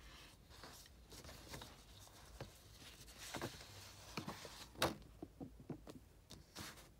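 Faint rustling and scattered soft clicks from paper notes and the recording device being handled. The loudest is a sharp click a little before five seconds in.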